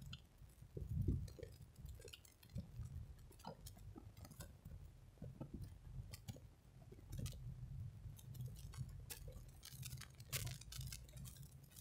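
Faint low hum inside a car cabin while driving slowly, with scattered light clicks and ticks at irregular intervals.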